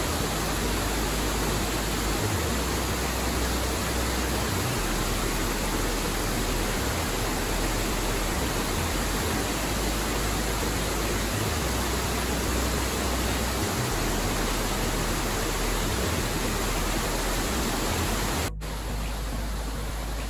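Creek water pouring over a small waterfall, a steady, dense rush. Near the end it cuts suddenly to a slightly softer flow of the creek.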